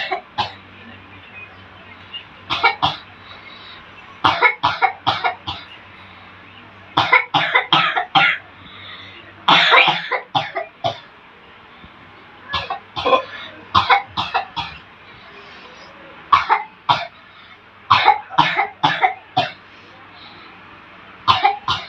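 A person coughing in repeated fits of several short, hard coughs, about eight fits two to three seconds apart. This is the patient's persistent cough, which the healer treats as an unnatural cough caused by jinn.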